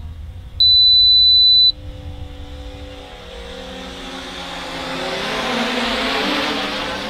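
Radio transmitter's flight timer sounding one long, high beep for about a second, signalling the set flight time is up. Then the small quadcopter's motors and propellers whine, growing louder as it flies back in.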